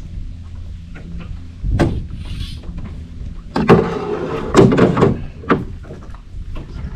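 Knocks, thumps and scraping in a small fishing boat, over a steady low rumble. A sharp knock comes about two seconds in, and a louder run of clattering and scraping follows in the middle.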